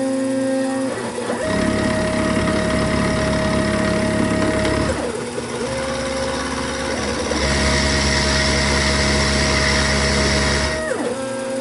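Milling machine running, its 1/4-inch ball end mill cutting a bevel in cast iron, with a steady motor whine under a scratchy cutting hiss. About 5 s and 11 s in, the whine dips in pitch and rises again as the feed slows and restarts. The cutting hiss is loudest from about 7.5 s to 11 s.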